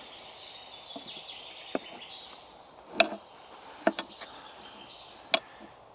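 A few light knocks and taps as one axe is laid over another on a wooden plank, wooden handles and steel heads handled against each other and the board, the loudest about three seconds in. Under them a faint, steady high hiss of outdoor ambience.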